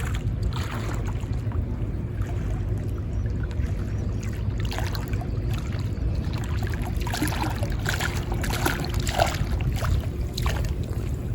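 Waterside outdoor ambience at a fishing spot: a steady low rumble with water noise, with scattered small clicks and a few brief higher sounds in the second half.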